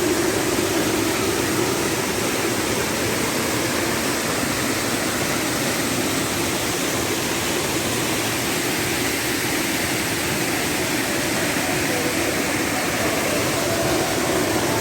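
Steady rushing of a waterfall: an even roar of falling water with no breaks.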